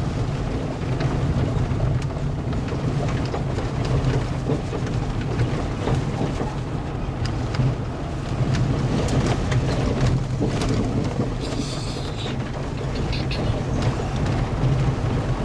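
Road noise inside a vehicle's cabin driving on a gravel road: a steady low rumble of tyres and engine, with many small ticks of loose gravel.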